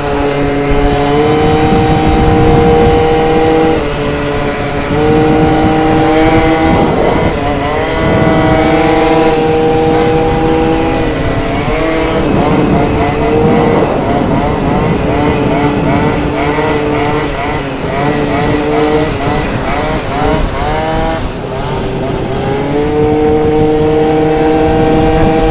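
70cc two-stroke scooter engines running at high revs while riding, the note holding steady and dipping briefly several times as the throttle comes off and back on, with a second scooter's note wavering alongside. Wind buffets the helmet microphone.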